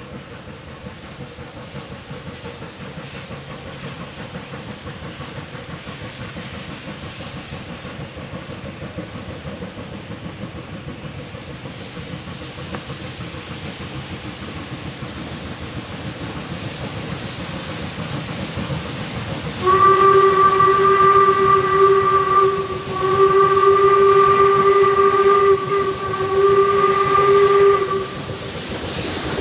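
Replica 1860s steam locomotive (Northern Central No. 17 "York") working toward the listener, its hiss and exhaust growing steadily louder. About two-thirds of the way in, its steam whistle sounds three blasts on one pitch: two of about three seconds each, then a shorter one.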